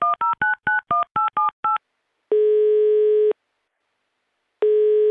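Telephone touch-tone dialing: eight quick two-tone keypad beeps, then the call's ringing tone sounding twice, about a second each with a pause between.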